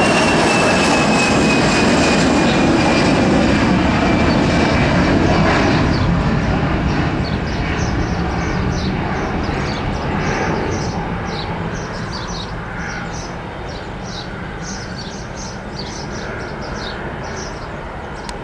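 Airbus A320 jet engines at takeoff climb thrust: a loud rumble with a high whine that slides slowly down in pitch, then fading steadily from about six seconds in as the airliner climbs away.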